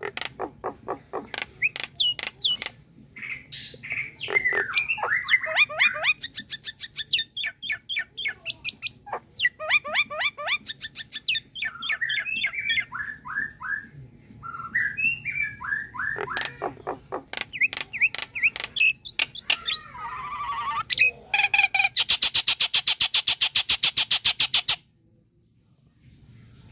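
Common myna calling: a varied run of rapid clicks, harsh rattles and gliding whistles, ending in a long, fast rattle of about ten notes a second that cuts off suddenly near the end.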